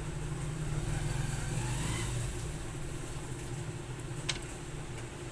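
A motor vehicle's engine running with a steady low hum, and one sharp click about four seconds in.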